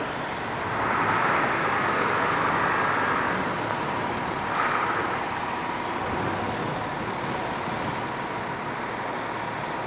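Steady diesel idle of an E-One fire truck's Cummins engine mixed with street traffic. A passing car swells the noise about a second in, and there is a brief rise a little before the halfway point.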